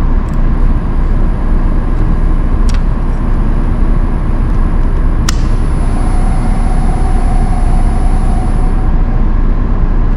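Steady loud machine rumble around a Voyager XP CNC bridge saw, with a few sharp clicks. A faint whine runs from about six to nine seconds in while the saw head rotates its C axis to −90 degrees.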